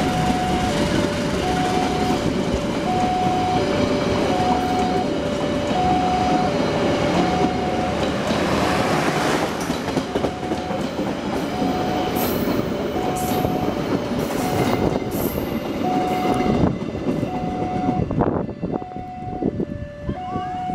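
Indonesian train passing with a loud, steady rumble and clatter of wheels on the rails, which dies down near the end. Over it a level-crossing alarm alternates between a higher and a lower tone, about one pair per second.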